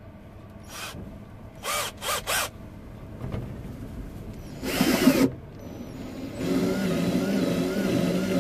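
Cordless drill fitted with a step drill bit: several short trigger bursts, the motor spinning up and winding down each time, then from about six and a half seconds in it runs steadily while boring into the wooden side of an oud.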